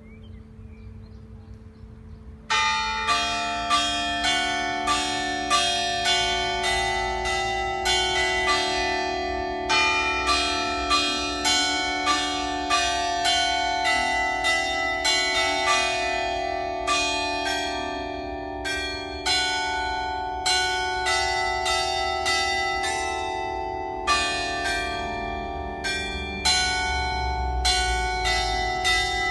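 Church bell ringing: rapid, evenly repeated strikes, about two a second, with each ring overlapping the next. It begins about two and a half seconds in.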